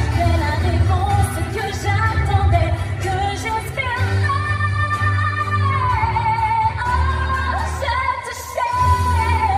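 Female singer holding long notes with vibrato over a full musical backing with a steady bass.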